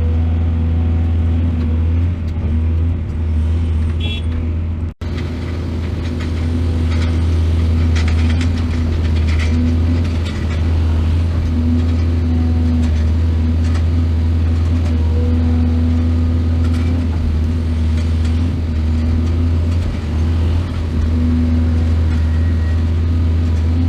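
Heavy excavator's diesel engine running steadily with a loud low drone, over faint intermittent scraping and knocks. The sound drops out for an instant about five seconds in.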